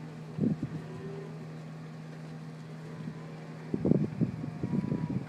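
Vehicle engine running with a steady low hum. There are short irregular rumbles about half a second in and again in the last second and a half.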